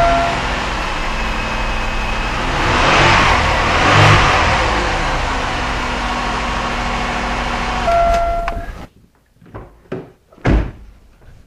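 A Chevy Malibu's 3.1-litre V6 runs steadily without the lifter tick, its reconditioned lifters now quiet. The sound swells briefly about three seconds in and stops abruptly near the end, followed by a few separate knocks.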